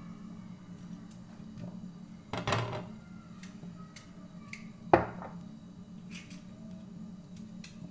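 Kitchen utensils and a plastic container handled at a counter: scattered small clicks, a brief clattering rattle about two and a half seconds in, and one sharp knock about five seconds in, over a steady low hum.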